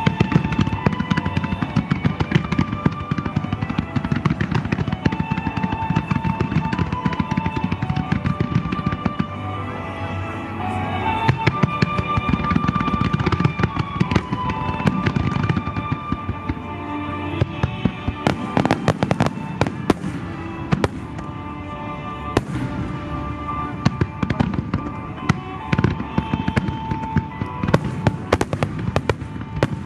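Fireworks bursting and crackling, with many sharp bangs coming thick and fast over the second half, while music with sustained melodic notes plays along.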